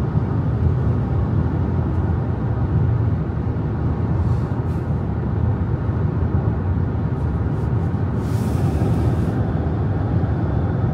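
Steady low rumble of a car driving along a road, with a brief hiss about eight seconds in.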